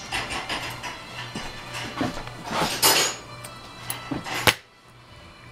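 Small hard objects clattering and clinking as someone rummages through them, with a louder rustle near the middle and a sharp knock about four and a half seconds in.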